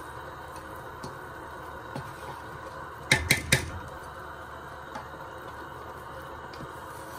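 Wooden spatula stirring rice in sugar syrup in a steel pot, over a steady hiss; about three seconds in the spatula knocks sharply against the pot three times in quick succession.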